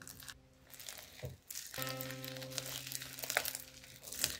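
Crunchy slime filled with polystyrene foam beads crackling and popping as hands squeeze and knead it, many small quick crackles, over background music with a held note.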